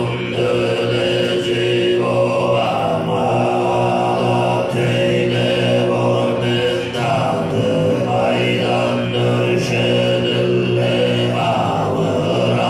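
Tuvan throat singing performed live over a PA: low male voices hold one droning pitch, with a thin high tone sustained steadily above it.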